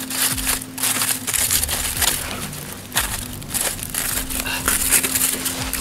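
Aluminium foil crinkling and rustling in quick, irregular crackles as a foil packet is pulled open by hand and with a knife.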